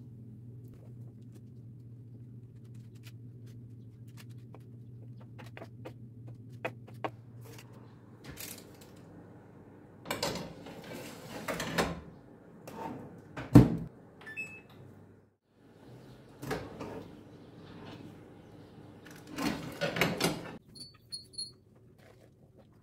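Kitchen handling sounds from a baking tray being drawn out of an electric oven: scraping on the oven rack and one sharp, loud knock about halfway through, among scattered lighter clicks and knocks. A low steady hum runs for the first several seconds.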